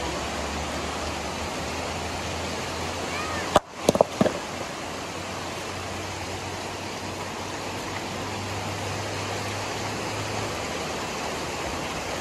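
Steady rush of a shallow river running over stones. About three and a half seconds in, a rock hurled down onto a river boulder strikes with one loud crack, followed by a few smaller knocks: a 'bombazo' blow meant to stun fish sheltering under the boulder.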